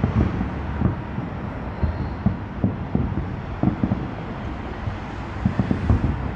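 Aerial firework shells bursting at a distance: an irregular run of dull booms, at times several a second, over a steady low rumble.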